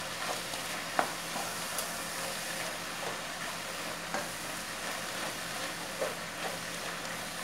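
Ground beef filling with onion, tomato and olives sizzling in a pot on the burner while a wooden spoon stirs it, with a few light knocks of the spoon against the pot.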